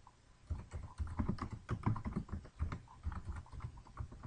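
Typing on a computer keyboard: a run of irregular keystrokes, starting about half a second in.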